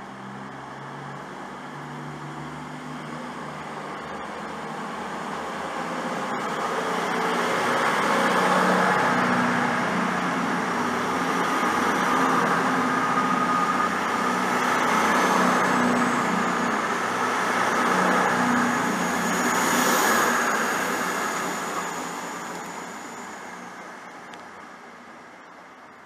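CrossCountry Voyager diesel-electric multiple unit departing: its underfloor diesel engines run up to power as it moves off. The sound grows over several seconds, stays loud while the train passes, with a high whine partway through, and fades as the train pulls away.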